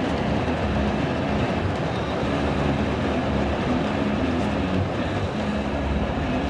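Heavy rain falling on a moving car, mixed with steady road and engine noise, heard from inside the cabin.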